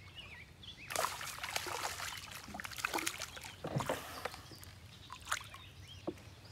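A small hooked bass thrashing and splashing at the water's surface in irregular bursts for about three seconds, then a few lighter splashes.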